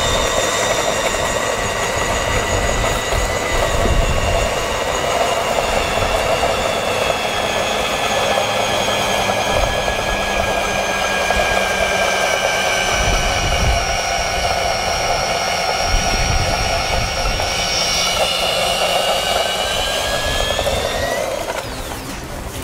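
Electric drill spinning a Best Harvest half-inch drill-type hay sampler probe into a round hay bale to cut a core sample. The motor whines steadily under load, its pitch sagging slightly midway and rising again just before it stops near the end.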